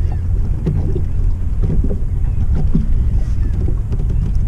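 Wind buffeting the microphone in a low, steady rumble, with choppy water slapping irregularly against a small fishing boat's hull.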